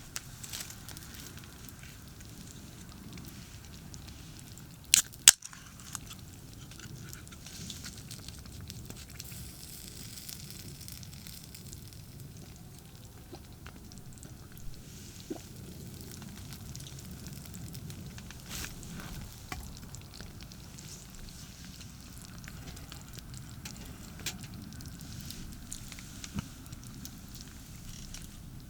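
Campfire crackling, with scattered small pops and two sharp loud snaps about five seconds in, over a steady low rumble of distant highway traffic.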